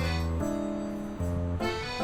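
Background music: an accordion-like instrumental tune moving through chords, with a bass note on each change.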